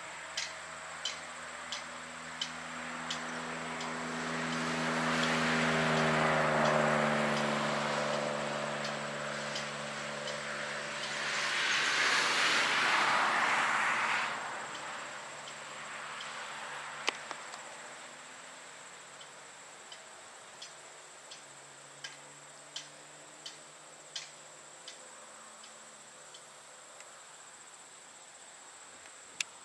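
Whelen WPS-4004 electronic warning siren winding down at the end of its wail, its tone sliding slowly lower and fading out over about twelve seconds. Two vehicles pass, the second one louder. A steady high drone and faint, regular ticking sit underneath throughout.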